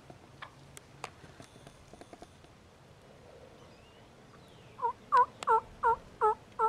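Turkey yelping: a run of six loud, evenly spaced calls, about three a second, beginning near the end after a few faint clicks.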